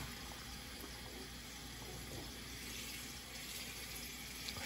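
Kitchen faucet running steadily, filling a stainless steel bowl with cold water.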